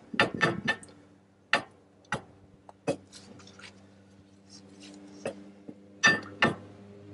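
Sharp, irregular metallic clicks and clinks from a Dana 35 rear axle shaft being turned and worked by hand in the axle housing, a cluster of them in the first second and a loud pair near the end. A faint steady low hum runs underneath.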